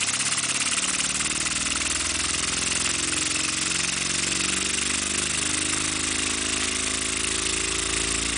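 Weeden toy steam engine running at high speed: a very fast, even chuff of exhaust beats blurring into a hum, with steam hissing, and the pitch climbing slowly as it speeds up.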